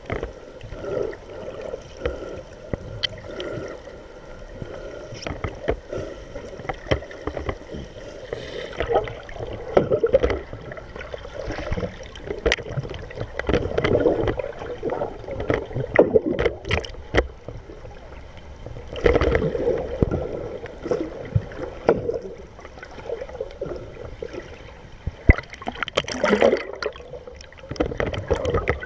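Muffled underwater water noise picked up by a camera in a waterproof housing: irregular sloshing and gurgling surges with scattered clicks.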